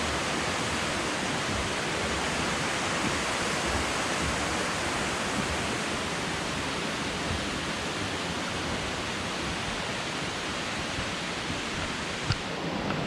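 Steady rush of falling water from a waterfall, an even roar with no breaks.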